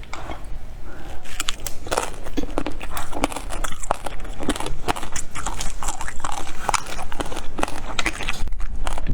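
Close-up biting and chewing of a mango-flavoured watermelon jelly: a dense, irregular run of wet, squishy clicks and smacks from the mouth.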